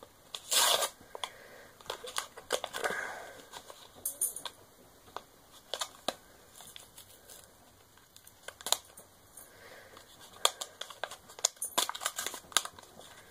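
Product packaging being torn and cut open by hand, with crinkling and scattered short, irregular clicks.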